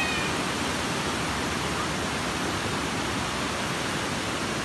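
Water falling over the second tier of Mae Sa Waterfall: a steady, even rush.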